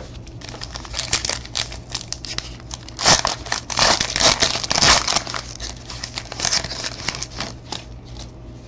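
Foil wrapper of a 2013 Panini Certified football card pack crinkling and tearing as it is ripped open, loudest and densest about three to five seconds in.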